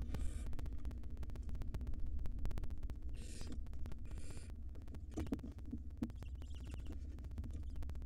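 Barn owl nestlings giving short rasping hiss calls, one near the start and two close together about three to four seconds in, over a steady low hum and rapid clicking.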